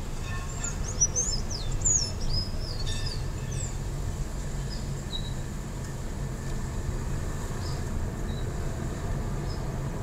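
Steady low rumble of a car driving slowly, heard from inside the cabin. Over it, a songbird sings a quick run of rising and falling whistles for the first few seconds, followed later by a few faint single chirps.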